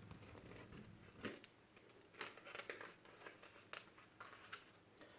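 Faint paper rustling with scattered soft clicks: the pages of a picture book being handled and turned.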